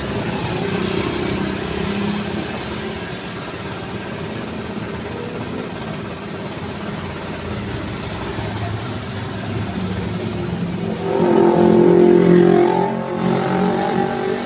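City street traffic: a steady flow of car engines and tyre noise. About eleven seconds in, a louder vehicle engine passes close by, peaking a second later, then fades back into the traffic.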